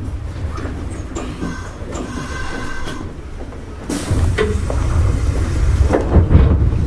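Nishitetsu 5000 series electric train running on track, heard from on board: a steady rumble of wheels and rails with faint motor tones, growing louder about four seconds in.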